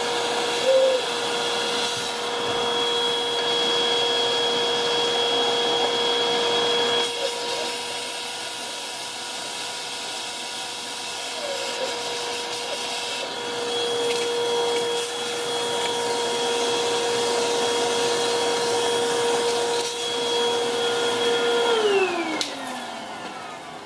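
Vacuum cleaner running with a steady whine as its nozzle sucks dirt and mud out of an old two-stroke saw engine, the pitch wobbling briefly a couple of times. Near the end it is switched off and the whine falls away as the motor spins down.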